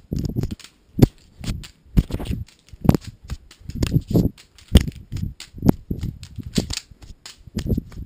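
Handling noise of a camera being juggled: irregular knocks and thuds as it is caught and tossed from hand to hand, roughly one a second, with rustling and rushing in between.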